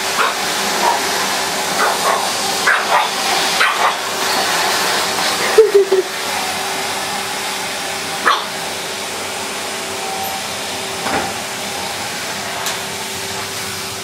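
A pug puppy barking in short yaps at a running Numatic Henry vacuum cleaner, whose steady hum runs underneath. The barks come quickly in the first four seconds, loudest in a quick cluster about six seconds in, then only a few single barks.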